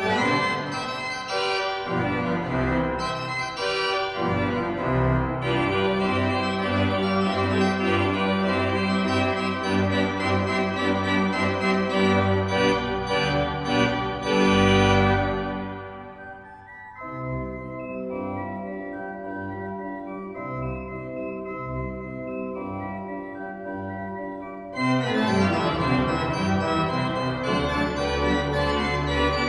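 Church pipe organ playing sustained full chords over a strong bass. The music starts abruptly, turns to a softer, thinner passage about halfway through, then comes back in full near the end.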